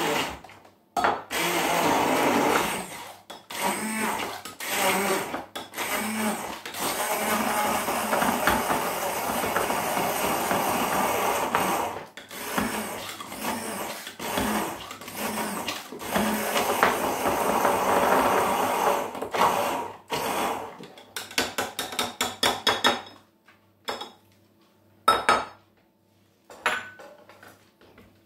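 Handheld stick blender blitzing chopped pepper, tomatoes and chilli in a jug, run in long bursts with brief pauses. About three-quarters of the way through it is pulsed in a rapid run of short bursts, then stops, followed by a sharp knock and a few small clinks.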